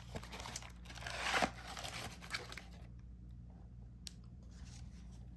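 Card-box packaging being torn and crinkled by hand, a rustling that swells about a second in and then quietens, with a single click near the end.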